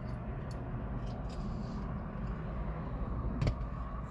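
Low, steady rumble of a car idling, heard from inside the cabin, with a single sharp click about three and a half seconds in.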